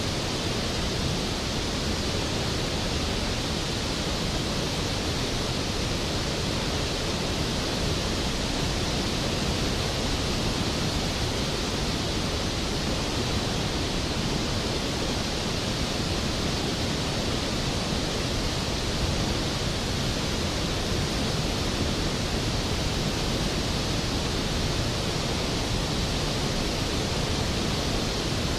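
Skógafoss waterfall: the steady, even rush of a large volume of water plunging into its pool.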